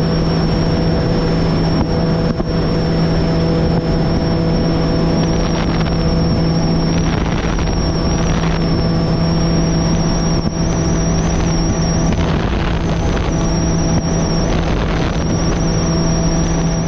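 Bass Cat Lynx bass boat's outboard motor running at a steady speed, a constant drone under the rush of wind and water.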